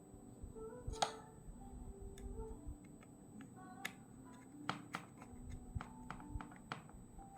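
Soft background music of short held notes, with scattered sharp clicks and taps throughout, the loudest about a second in.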